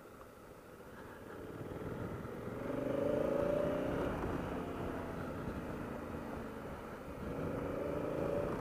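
Honda Africa Twin CRF1000L's parallel-twin engine pulling under way, its note swelling as it accelerates about three seconds in and again near the end, over steady wind and road noise.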